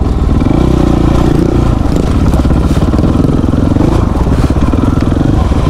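Two-stroke dirt bike engine running at part throttle, its revs rising and falling repeatedly.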